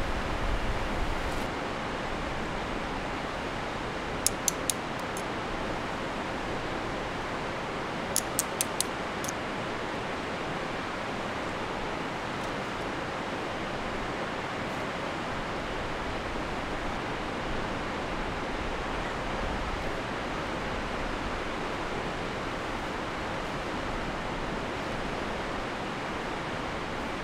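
Steady rush of river rapids. A few short, sharp clicks come in two quick groups, about four seconds in and again around eight to nine seconds.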